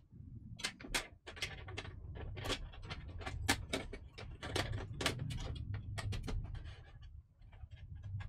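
Irregular clicks and light knocks of a wireless expansion card and its cable being fitted into the bottom slot inside a PC case, over a low steady hum.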